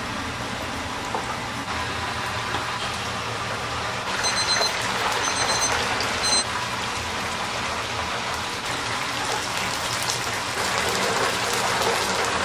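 Coated chicken pieces deep-frying in a commercial fryer of hot oil, a steady hiss and crackle. About four seconds in, an electronic beep sounds three times.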